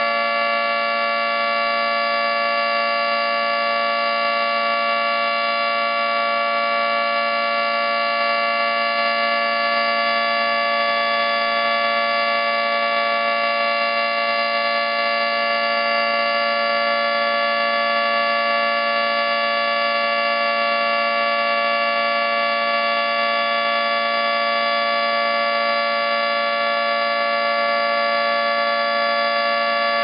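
Federal Signal 2T22 dual-tone electromechanical outdoor warning siren sounding a steady two-tone chord at full pitch, with no rise or fall, during a routine test.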